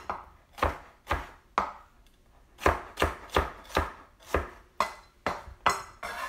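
Chef's knife slicing red bell pepper into strips on a cutting board: a steady run of knocks of the blade striking the board, about two to three a second, with a short pause about two seconds in.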